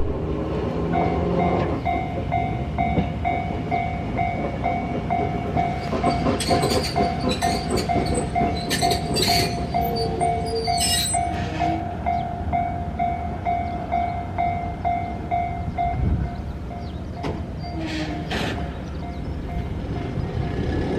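Japanese level-crossing warning bell ringing at an even beat of about two strokes a second over the rumble of a passing tram, with high squeals and clicks from its wheels in the middle; the bell fades out near the end.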